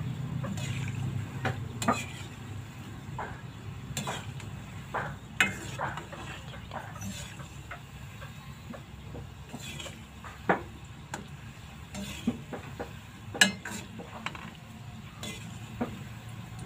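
Gulab jamun balls frying in hot oil in a steel pan with a steady sizzle. A perforated metal skimmer clinks and scrapes against the pan at irregular moments as the balls are turned, with the sharpest knocks about ten and thirteen seconds in.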